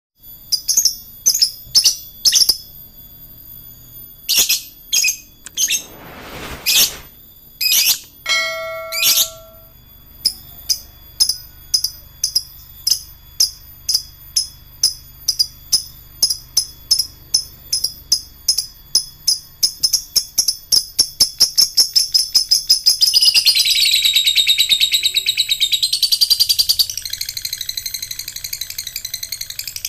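Lovebird calling with sharp, shrill chirps, separate at first. It then gives a run of evenly spaced chirps that speeds up and, about two-thirds of the way in, runs together into a long, fast chattering trill: the 'ngekek panjang' (long chatter) that lovebird keepers prize.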